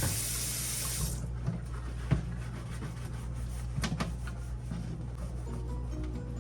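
Water running, cutting off about a second in, then a few light clicks and knocks.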